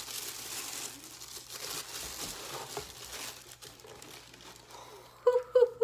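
Tissue paper crinkling and rustling as it is folded back from a shoe box. It fades after about three and a half seconds.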